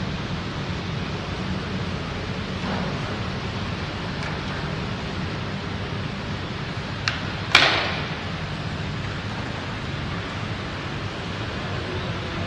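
Heavy rain falling in a steady hiss. A sharp click about seven seconds in is followed half a second later by a louder, sharper knock with a short ringing tail.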